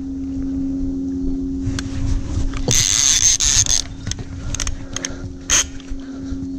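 Boat engine droning steadily, a low even hum, with a brief hiss about three seconds in and a shorter one near the end.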